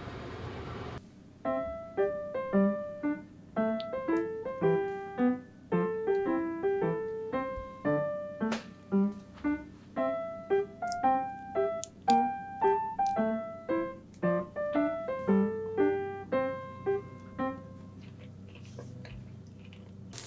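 Background solo piano music, a light melody of single struck notes that starts about a second in and dies away a few seconds before the end. In the first second a wooden spoon is stirring and scraping the sauce in the pan.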